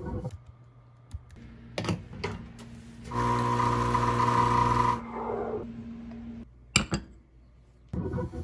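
An espresso machine's pump buzzing steadily for about two seconds as a shot is pulled, set between sharp clicks of a computer mouse, a couple near the start and several near the end.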